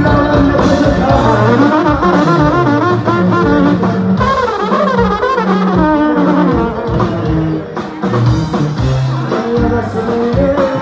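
Live regional Mexican band music at full volume: a singer over guitars and a plucked upright bass.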